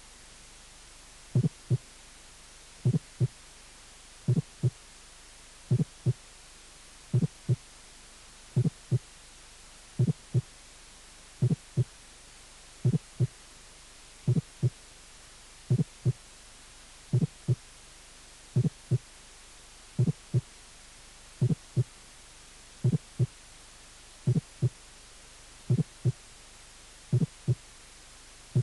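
Recorded heartbeat through a stethoscope, with a fourth heart sound (S4), the low extra sound just before the first heart sound that makes a presystolic (atrial) gallop. Each beat is a pair of low thuds about a third of a second apart, repeating slowly and evenly, about one beat every second and a half.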